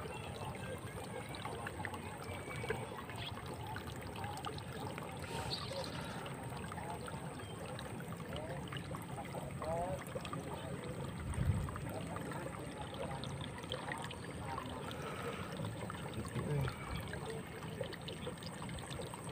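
Shallow rice-paddy water trickling and sloshing faintly as a hand works in the mud at the water's edge. There is a muffled thump a little past halfway through.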